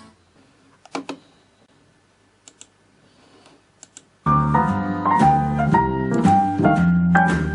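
Music playback through a repaired Pioneer speaker. One track ends, then there is a quiet gap of about four seconds with a few faint clicks, and a new keyboard- and piano-led song with bass starts suddenly just past the middle.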